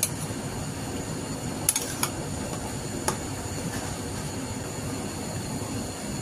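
Metal spoon clinking against an enamel pot a few times while stirring chunks of goat meat, onion and peppers, over a steady hiss.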